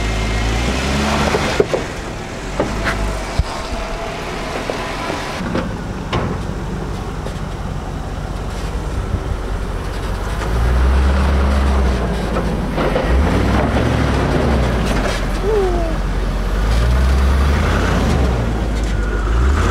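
SUV engines at off-road crawling speed, the Jeep Wrangler first with a few sharp knocks and creaks, then the Land Rover Discovery climbing through ruts. From about halfway the Land Rover's engine rises and falls in repeated short revs as it works over the ruts and grows louder as it nears.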